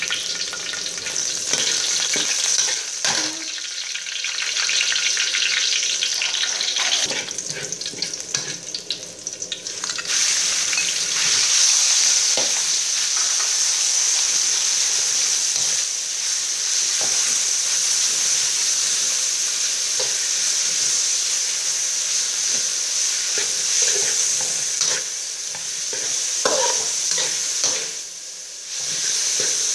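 Chopped garlic and minced pork sizzling in a hot metal wok while a spatula scrapes and taps the pan as the food is stirred. The sizzle grows louder about ten seconds in, as the raw pork goes into the hot oil.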